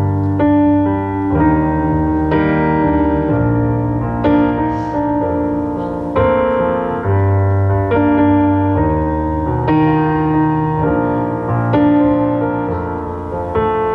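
Electric keyboard in a piano voice playing slow chords, a new chord struck about every one to two seconds and left ringing, over held low bass notes.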